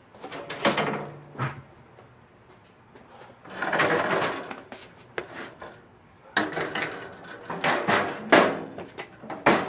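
Perforated stainless-steel grass catcher being handled and hooked onto a stand-on mower's mount: metal knocks and scrapes in three spells, the last a run of sharp knocks near the end.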